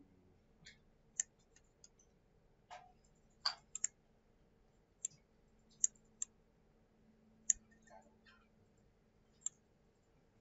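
Computer mouse clicking: about a dozen sharp, irregularly spaced clicks, with a faint steady hum underneath.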